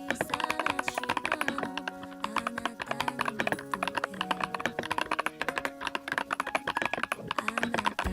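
Fast typing on a YUNZII Coolkiller CK75 gasket-mounted mechanical keyboard with Lilac switches: a dense, uneven stream of key clicks, over background music.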